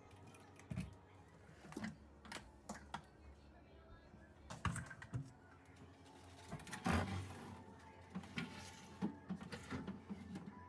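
Irregular light clicks and knocks, with a louder knock about seven seconds in, over a faint steady low hum.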